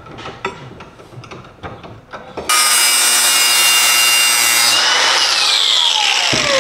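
Cordless angle grinder beveling the edge of a steel plate held in a bench vise, in preparation for a butt weld. A few light knocks as the plate is set, then about two seconds of loud, steady grinding, after which the trigger is released and the motor winds down with falling pitch.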